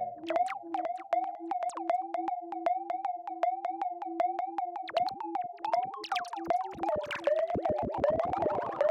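Synthesized robot-style electronic blips: a fast, even chatter of short beeps on one pitch, about five a second, that turns denser and busier with chirping sweeps about six seconds in.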